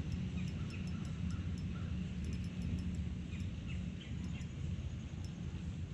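Birds chirping now and then over a steady low hum.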